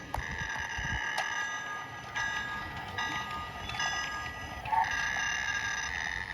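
Battery-powered toy Hogwarts train running on its track, giving out a steady high electronic ringing tone that breaks off and restarts a few times, with light clicks.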